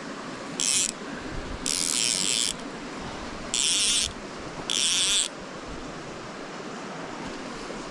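Fly line pulled off a fly reel in four short, high-pitched buzzing pulls over the steady rush of a small rocky stream.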